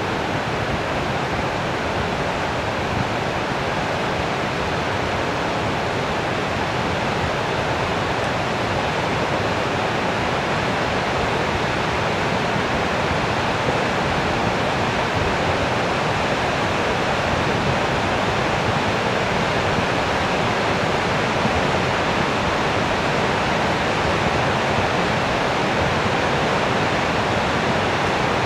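Steady rushing of flash-flood water, growing slightly louder.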